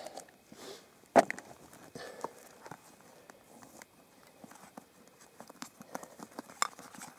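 Camp cooking gear being handled on rock: a sharp knock about a second in, then scattered small clicks and rustles as a food pouch and a cooking pot with its lid are moved about, with another sharp click near the end.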